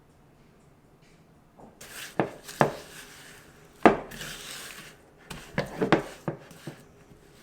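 Kitchenware being handled: a string of sharp clicks and knocks with scraping in between, starting about two seconds in, the loudest knock near the middle.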